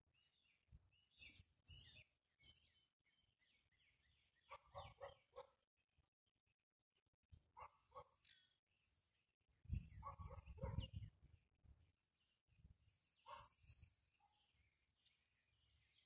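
Faint birdsong: high chirps and several short runs of quickly repeated lower calls, with a thin high whistle in the second half and a brief low rumble about two-thirds of the way through.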